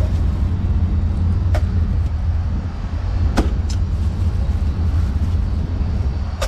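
Steady low rumble of street traffic, with a few sharp chops of a cleaver into roast meat on a wooden chopping block.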